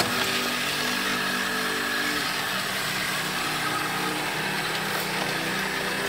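ILIFE V7S Pro robot vacuum cleaner running: a steady whir of its suction fan and brushes, with background music of sustained notes under it.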